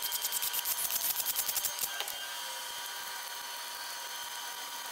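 Cordless ratchet running down a bolt on an engine block's cover plate, a fast, even clicking, about ten clicks a second, for roughly the first two seconds. Then one single click and a steady low shop hum.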